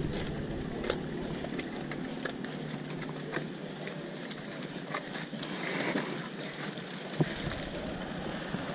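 Steady outdoor background hiss with scattered light footsteps and small knocks on pavement.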